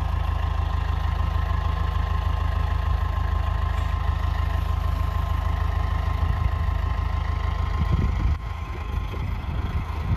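International 845 XL tractor's four-cylinder diesel engine running steadily, with a thin steady whine above it. About eight seconds in, the engine note drops and gets quieter.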